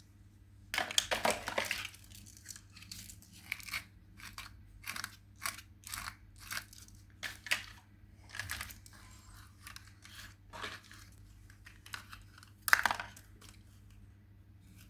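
Crunching and crinkling handling noises: a dense cluster of crackles about a second in, then a series of separate short crunches, and one sharp, louder crunch near the end.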